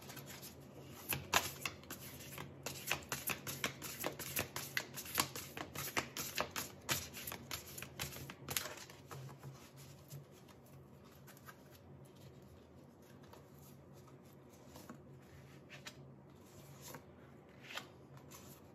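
A deck of oracle cards being shuffled by hand: a quick run of light card clicks and riffles for about the first half, then quieter, with a few soft taps near the end as cards are dealt onto a cloth.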